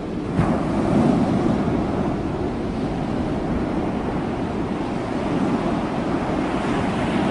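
Ocean surf washing steadily, with wind blowing on the microphone.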